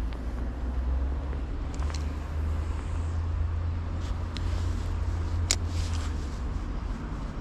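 Steady low outdoor rumble with a few sharp clicks, the loudest about five and a half seconds in.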